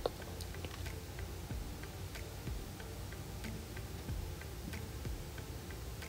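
Faint, light ticking clicks, irregularly spaced at about one to two a second, over a low steady hum.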